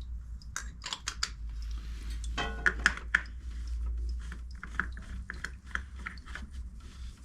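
Scattered light clicks and knocks from handling a new motorcycle oil filter and tools while fitting it by hand, with a brief quick rattle about two and a half seconds in.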